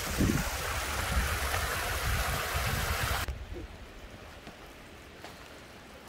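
Small spring-fed stream running and splashing over rocks, with wind buffeting the microphone. It cuts off abruptly about three seconds in, leaving a much quieter background.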